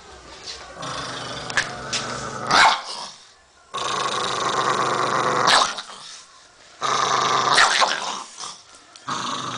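A small black-and-tan pinscher-type dog growling and snarling in four long bouts of one to two seconds each, with a few short sharp barks or snaps between them: an angry warning, the dog baring its teeth.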